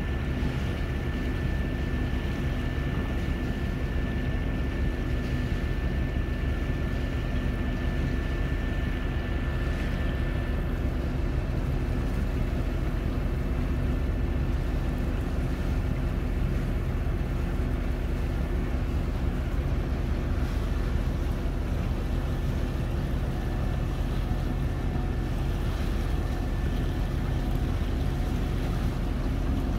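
A boat engine drones steadily, with wind buffeting the microphone. A faint high whine fades out about a third of the way through.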